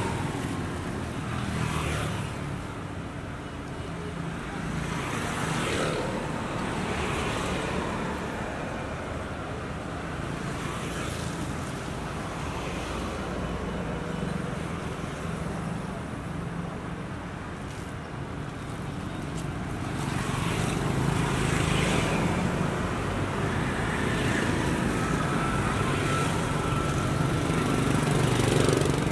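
Steady street traffic: motor vehicles running and passing, the din swelling and easing as they go by.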